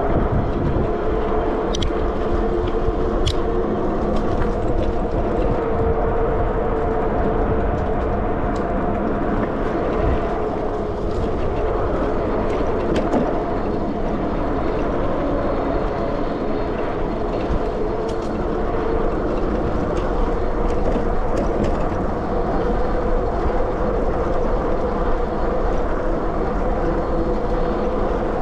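Sondors Madmods electric bike's motor whining steadily while riding along, over tyre rumble on the pavement and wind on the microphone.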